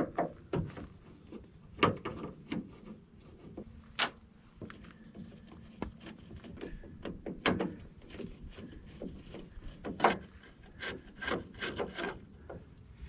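Hands handling a turn-signal bulb and its socket: irregular clicks and knocks with rubbing and scraping between them, and a sharp click about four seconds in.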